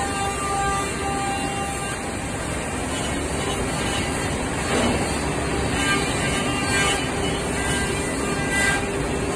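Steady machine noise from a five-axis CNC trimming robot working its spindle around the edge of a vacuum-formed plastic suitcase shell, with short steady tones coming and going.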